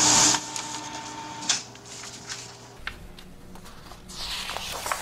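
Fax machine printing a received page and feeding it out: a loud rush at the start, then a steady motor whir with scattered clicks.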